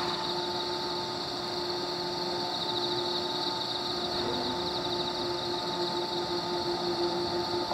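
JR Kyushu 415 series 100-subseries steel-bodied electric multiple unit moving off slowly, a steady hum with two held tones. Over it runs a constant high chirring of night insects.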